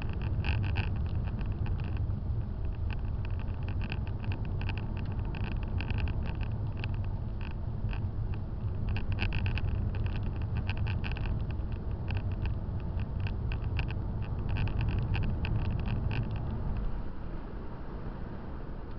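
Car driving on a winding road, heard from inside the cabin: a steady low engine and road rumble, with a rapid, irregular rattling over it that stops about three seconds before the end, when the rumble also eases.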